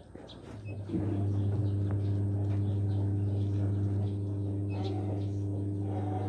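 Pelung rooster crowing: one long, low, steady crow that starts about a second in and holds for about five seconds.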